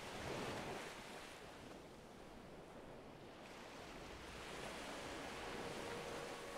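Ocean surf on the soundtrack: a wave washes in about a second in, then the rush of water builds again through the second half.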